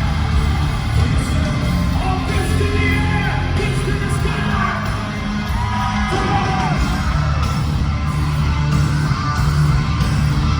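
Live hard rock band playing at full volume in a large hall, with heavy bass and drums, a sung vocal line and yelling over it.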